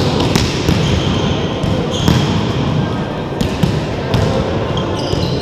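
Volleyball struck by players' hands and forearms during a rally, several sharp slaps ringing in an echoing sports hall, with short high squeaks from shoes on the gym floor about two seconds in and near the end.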